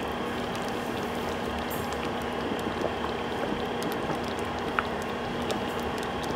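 A pot of rice-flour-thickened corn and shrimp soup boiling steadily, brought back to the boil for adding egg, with many small scattered pops and a faint steady hum underneath.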